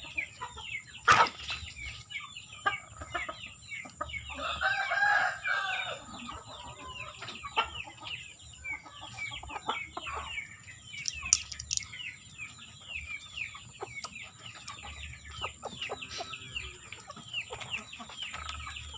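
Chickens clucking and chirping continuously, with a rooster crowing for about two seconds about four seconds in. A single sharp knock about a second in is the loudest sound.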